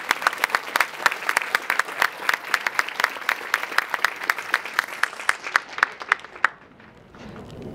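Audience applauding, led by one person's loud hand claps close by at about four a second. The clapping stops abruptly about six and a half seconds in.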